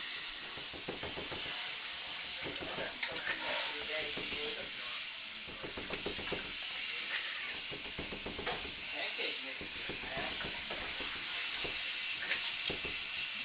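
A cat's paws and claws scratching and rubbing at a hard clear plastic container: a continuous scratchy rustle broken by many small clicks and scrapes.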